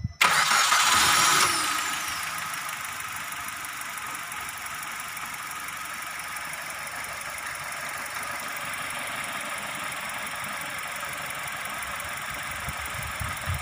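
Suzuki Ertiga's K14B 1.4-litre four-cylinder petrol engine starting after reassembly from a valve repair for lost compression: it catches right at the start, runs louder for about a second and a half, then settles into a steady idle.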